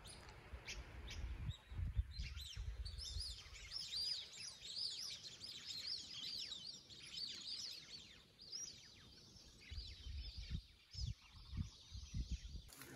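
A flock of birds chirping: many short, overlapping rising-and-falling calls, faint, which die away about nine seconds in, over a low rumble.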